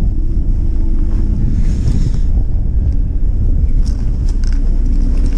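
Strong cold wind buffeting the microphone on a small fishing boat's bow, a steady low rumble, with the boat's engine running underneath it.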